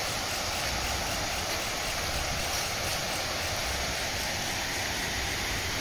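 Steady rushing of flowing water, an even hiss with a low rumble that does not change.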